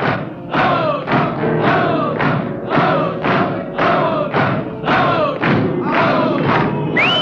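A crowd of men shouting a chant in unison, about two shouts a second, with a thump on each beat.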